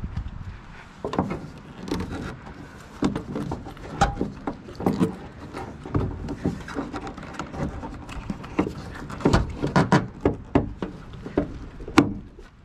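Irregular clicks and knocks of hands fumbling at a school bus's hood latch along the edge of the hood, with the sharpest knock near the end.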